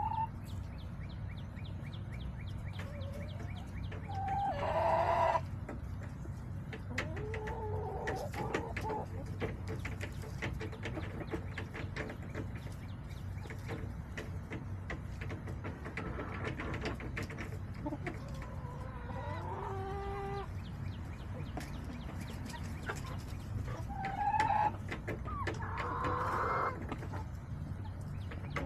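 Backyard hens clucking and calling on and off, with louder calls about five seconds in and again a few seconds before the end. Underneath runs a steady low rumble with scattered faint ticks.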